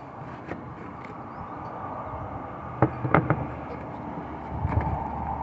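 A few sharp clicks and knocks, with a quick cluster of three or four about three seconds in. Near the end the steady running of a vehicle engine rises in.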